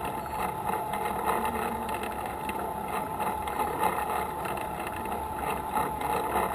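Vehicle engine running steadily as it rolls slowly along, with a constant hum throughout.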